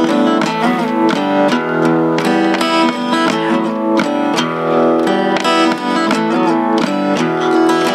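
Acoustic guitar picking and strumming an instrumental passage of a song, with regular plucked notes over sustained chords.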